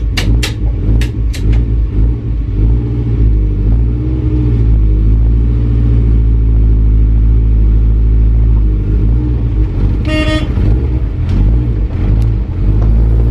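Turbocharged VW 1.8T 20-valve four-cylinder engine of a VW T4 Transporter, heard from inside the cab as the van pulls away at low speed, revs rising and falling. A few sharp clicks come in the first two seconds, and a short horn toot sounds about ten seconds in.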